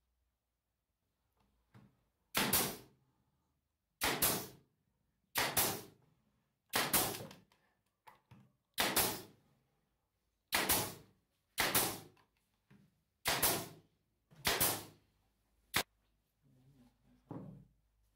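Bostitch pneumatic nailer firing into 3/4-inch MDF boards: about nine sharp shots, roughly one every second and a half, each with a short hiss of exhaust air, and a smaller click near the end.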